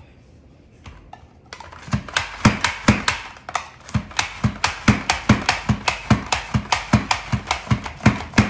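Pampered Chef Rapid-Prep mandoline slicer being plunged again and again, slicing potatoes into discs with a sharp clack on each stroke, about three a second. The clacking starts about a second and a half in.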